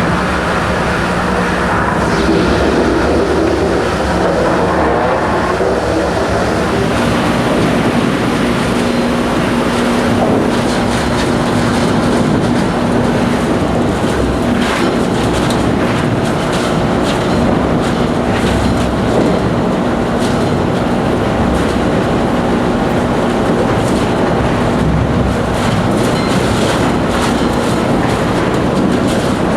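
Large wood chipper running under load, a steady engine drone beneath a continuous clatter of sharp knocks and cracks as wood is fed through and chipped.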